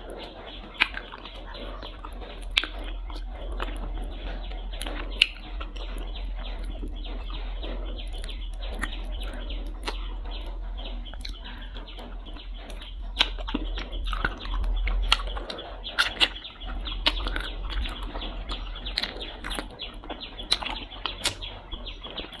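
Close-miked wet eating sounds of braised duck feet being sucked and chewed off the bone: scattered sharp lip smacks, sucks and mouth clicks, over a low steady hum.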